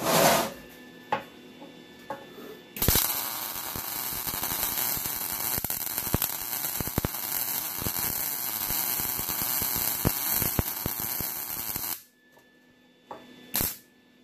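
MIG welding arc from a Lincoln 180 HD MIG welder with 75/25 argon-CO2 gas, running a continuous bead on a steel rail. It makes a steady crackling sizzle that starts about three seconds in and stops abruptly about nine seconds later. There are short blips at the very start and near the end.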